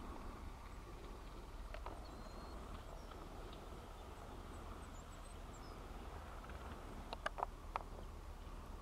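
Faint outdoor ambience: a steady low wind rumble, a few faint high chirps, and a quick cluster of sharp clicks about seven seconds in.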